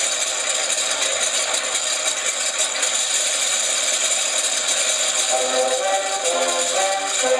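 Electronic sound box of a motorised 1/48 J1N1 Gekko model playing a twin-engine aircraft engine sound, a steady, dense rattling run synced to the spinning propellers. Steady stepped tones join about five seconds in.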